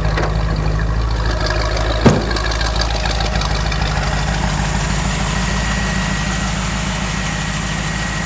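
Chevrolet 350 small-block V8 idling steadily through its exhaust pipes, with one sharp thump about two seconds in as the trunk lid is shut.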